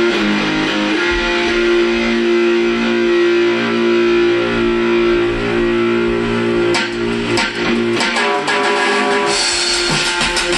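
A band jamming live, led by electric guitar. The guitar holds long sustained chords at first, then sharp hits come in around seven seconds, and an even, quicker rhythm starts about nine seconds in.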